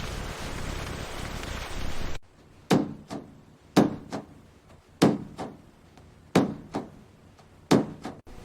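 A steady hiss, then, after an abrupt cut, five heavy thuds about a second and a quarter apart, each followed by a lighter second knock.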